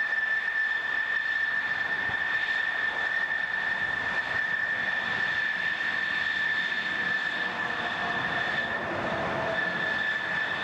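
Grumman F-14 Tomcat's twin jet engines running at taxi power: a steady high whine over a rushing hiss.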